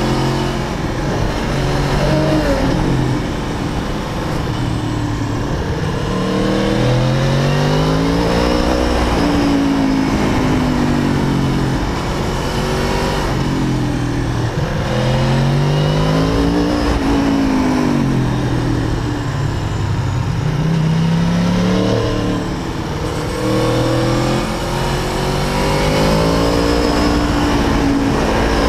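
Aprilia Tuono V4 APRC Factory's V4 engine on the move, accelerating through the gears: its pitch climbs and then falls back at each shift, in several runs of rising and falling revs.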